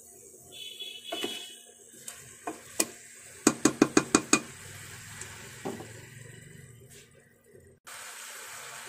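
Wooden spatula stirring chicken and vegetables in a pressure cooker pot, scraping and knocking against the metal, with a quick run of about seven sharp knocks a little over three seconds in. Near the end a steady hiss starts suddenly.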